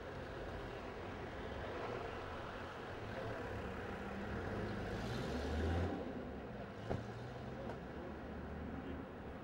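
A car driving slowly along a street: steady engine and tyre rumble that swells deeper and louder about five and a half seconds in, with a single short click about seven seconds in.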